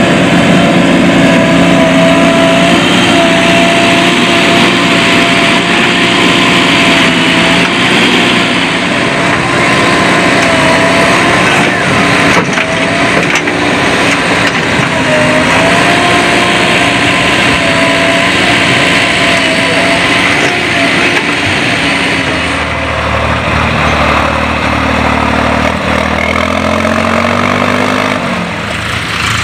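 JCB backhoe loader's diesel engine running hard while it digs and loads soil, with a steady whine that wavers in pitch. In the last several seconds a lower, deeper tractor engine note takes over and rises and falls in pitch near the end.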